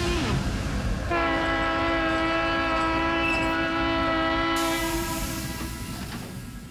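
A recorded train horn blows one long held chord of several tones for about four seconds to close the song, with a hiss joining near the end, then fades away.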